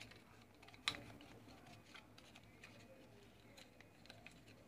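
Near silence with a few faint ticks and one sharp click about a second in: small handling sounds of wires being worked into a plastic lamp housing.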